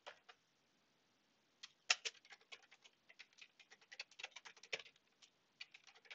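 Faint typing on a computer keyboard: quick, uneven runs of key clicks starting about a second and a half in and going on until near the end.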